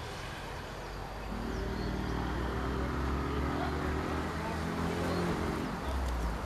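GE C30-7 diesel locomotive approaching at the head of a freight train: a steady low engine rumble with a pitched drone that grows about a second in and holds.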